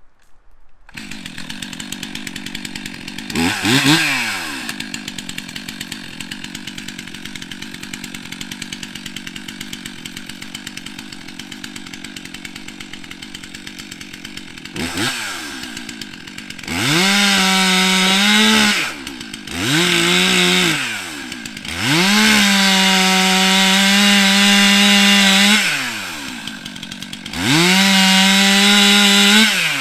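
STIHL MS 362 C-M two-stroke chainsaw idling, blipped briefly twice, then revved to full throttle four times for two to four seconds each while cutting through a log, dropping back to idle between the cuts.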